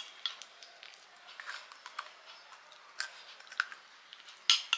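Person chewing panipuri: scattered crisp crunches and small mouth sounds, with a sharper click about three seconds in and a louder one near the end.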